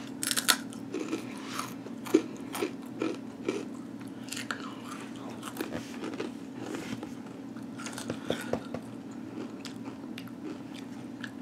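A person biting into and chewing Takis Fuego rolled tortilla chips: a string of crisp crunches, thickest in the first few seconds and again near the end, over a faint steady low hum.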